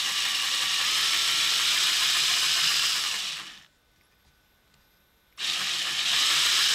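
Small electric drill with a 1.5 mm bit boring slowly into the diecast metal rivet post of a Hot Wheels redline car body, drilling it out to take a reproduction rivet. It runs steadily for about three and a half seconds, stops for nearly two, then starts again near the end.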